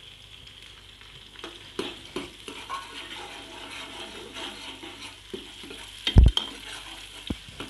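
Onions and garlic sizzling in ghee in an aluminium pressure cooker, with a steel ladle stirring and scraping against the pot in scattered clicks. A single loud low thump comes about six seconds in.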